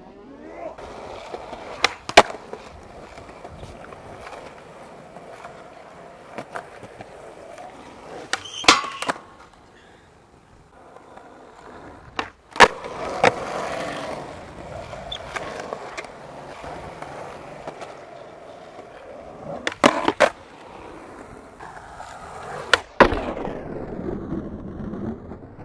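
Skateboard wheels rolling over concrete, with loud, sharp cracks of the board popping and landing several times, some in quick pairs.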